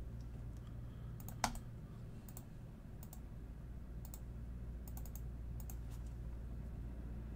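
Scattered clicks of a computer keyboard and mouse, a dozen or so spread out, the sharpest about one and a half seconds in, over a low steady hum.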